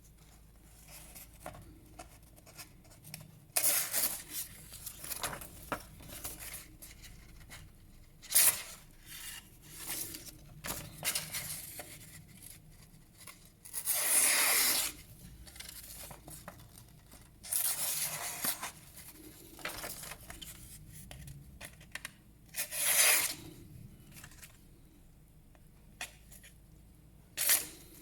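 Folding pocket-knife blade slicing through sheets of paper in a sharpness test: a series of separate short, rasping cuts a few seconds apart, the longest lasting about a second, with quieter paper rustling between them.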